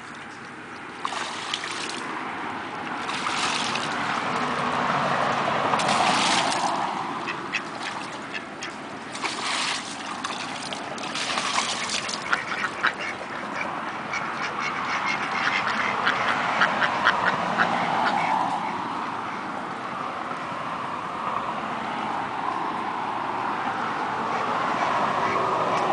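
Domestic ducks quacking in bursts, with quick runs of quacks partway through, over the splashing of the ducks paddling and diving in a tub of water.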